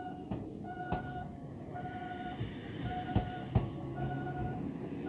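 Level-crossing alarm bell ringing on and off about once a second while an Enoshima Electric Railway (Enoden) train passes over the crossing. The train rumbles, and its wheels knock sharply in pairs over the rail joints.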